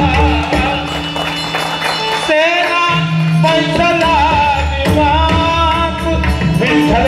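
Live Marathi devotional abhang sung by a male voice with wavering, ornamented phrases over harmonium and pakhawaj drum. The drum thins out for a few seconds and comes back in about five seconds in.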